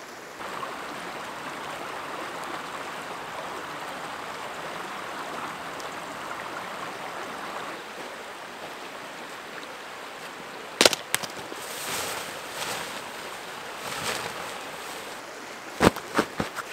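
River water rushing over rocks, a steady hiss. In the second half a few sharp knocks and clicks come through, several in a quick cluster near the end.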